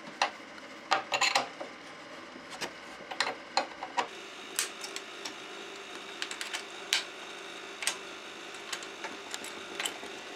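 Irregular sharp metallic clicks and clinks of a spanner and screwdriver working the screws and bolts that fasten steel angle brackets to a lathe's base.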